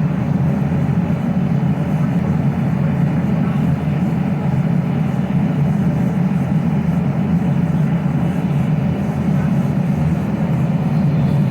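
A forge running with a steady, low, continuous rushing noise and no hammer blows.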